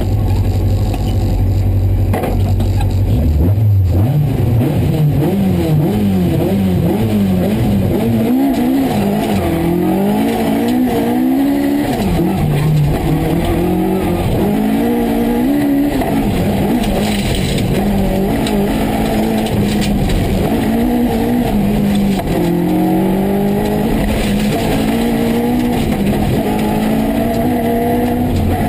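Rally car's engine heard from inside the cockpit. It holds steady revs on the start line, then launches about three seconds in and drives hard, the revs rising and dropping over and over.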